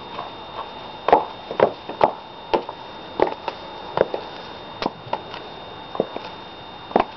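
High-heeled shoes walking, sharp clicking steps about two a second, loudest about a second in.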